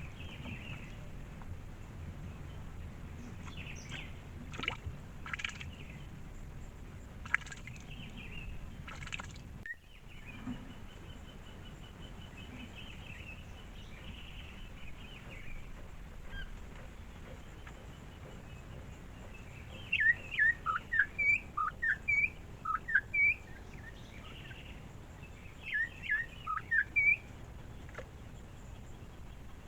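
Wild birds calling: scattered short calls, a thin even trill partway through, then two bursts of loud, quick, downward-slurred calls near the end.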